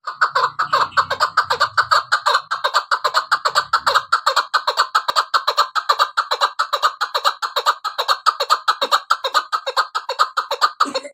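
Chukar partridge calling: a fast, unbroken run of short clucking 'chuk' notes, about nine a second, kept up without pause.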